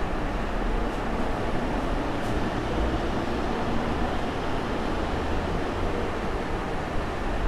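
Steady, loud noise: an even hiss over a low rumble, with no clear rhythm or tone.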